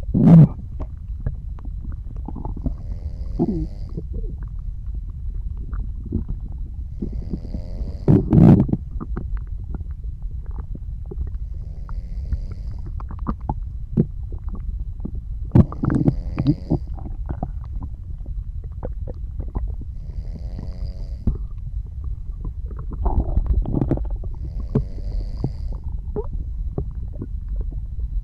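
Human stomach and intestines gurgling and rumbling over a steady low rumble, with louder surges roughly every eight seconds, alongside soft snoring breaths.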